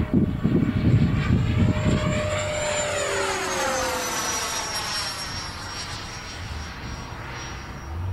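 A 90 mm ducted fan in a radio-controlled F-16 jet making a fast pass: a high fan whine that drops in pitch as it goes by, with a rushing sweep that peaks about three seconds in. Wind buffets the microphone during the first two seconds.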